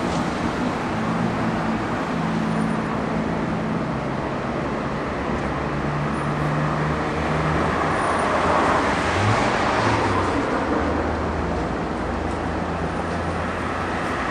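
Road noise heard from inside a moving car: tyre rumble and a steady low engine hum, the rush of the road growing louder for a few seconds just past the middle.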